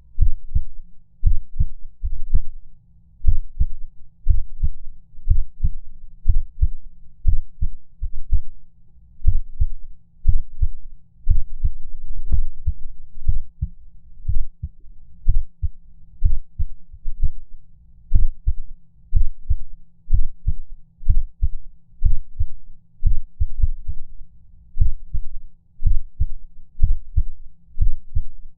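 Heartbeat sound effect: low, deep lub-dub thumps in close pairs, roughly one beat a second, with uneven spacing that gives an irregular, skipping rhythm.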